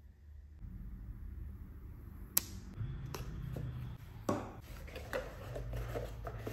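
Handling noise from a Garmin Forerunner 965 smartwatch and its cardboard box on a wooden table: a sharp click a little over two seconds in, then several softer knocks and rustles as the watch is set down and the box moved.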